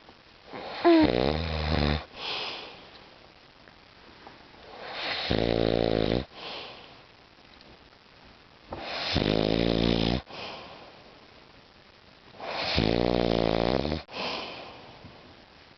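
A man snoring deeply in his sleep. There are four snores about four seconds apart, each followed by a short breathy sound.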